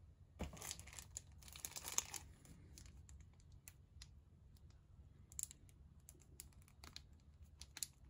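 Clear plastic wrap on a small lighter box crinkling faintly as the box is picked up and handled. A dense rustle over the first two seconds, then scattered short crackles.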